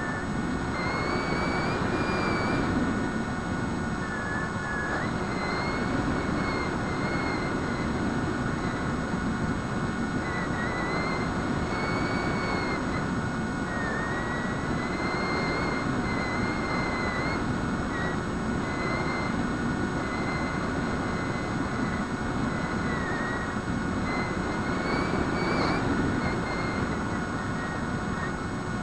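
Electric motor and propeller of a Bixler foam RC plane whining in flight, heard from on board, its pitch drifting up and down a little, over a steady rush of air noise.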